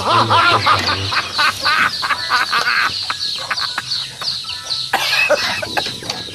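Farmyard poultry calling, many short overlapping calls several times a second.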